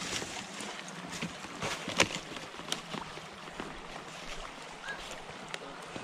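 Footsteps crunching on snow-covered brush and a log over a running creek, with scattered twig snaps (the sharpest about two seconds in), against the steady rush of the creek water.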